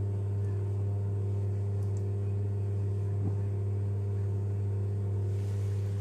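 Steady low hum, unchanging throughout, with no clear sound from the spoon smoothing the filling.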